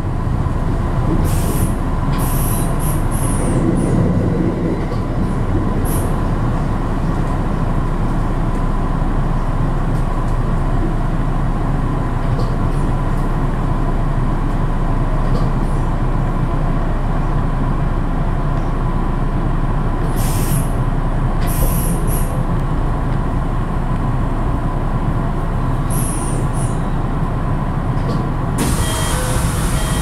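Hanshin Namba Line electric train running on the rails, heard from inside the car: a steady rumble of wheels on track with a steady hum. Short high-pitched squeals come several times, and a loud hiss sets in near the end.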